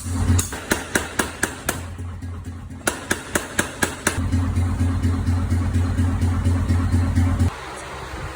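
Hammer blows on hot steel at the anvil while a knife blank is forged: a quick run of strikes, about four or five a second, with a short pause in the middle. A steady low machine hum follows and cuts off near the end.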